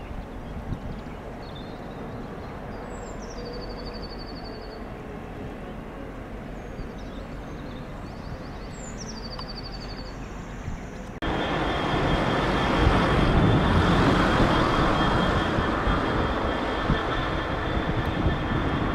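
Birds chirping over a steady low rumble. About eleven seconds in, an abrupt cut to a train running loudly, with a steady high whine over its noise.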